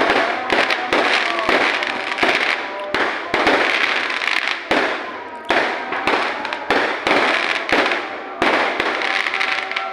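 Fireworks going off in quick, irregular succession: a dense run of sharp bangs and crackling with no break.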